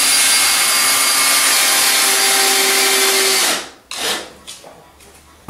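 Hand-held electric power tool running on wood for about three and a half seconds, then cutting off, with a short second burst just after.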